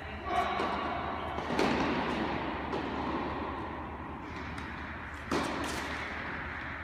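Three sharp tennis-ball knocks in a large, echoing indoor tennis hall, the loudest about half a second in and about five seconds in, over a steady hall hum.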